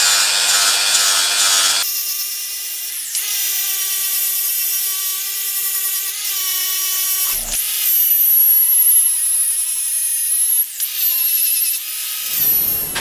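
Power grinder grinding the steel head of an old hatchet: a loud, steady high whine with a few brief dips. It cuts off near the end.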